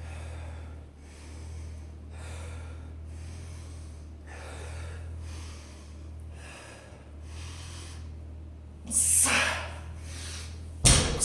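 A man breathing hard and rhythmically from exertion, about one breath a second. About nine seconds in comes a much louder, forceful exhale, and just before the end a heavy thud.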